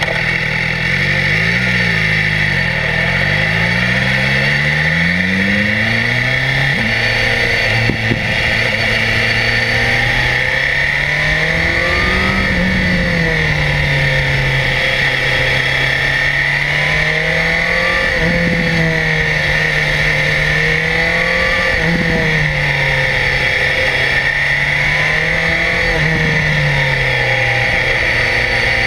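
BMW S1000XR's inline-four engine accelerating hard up through the gears in the first few seconds, each gear a quick rising sweep in pitch. It then runs at moderate revs, rising and dipping every few seconds as the throttle opens and closes, over a steady high hiss.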